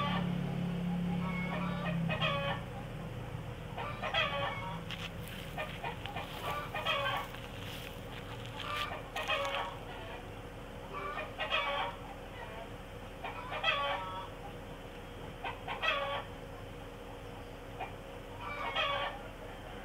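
Chickens clucking, short calls repeating every couple of seconds.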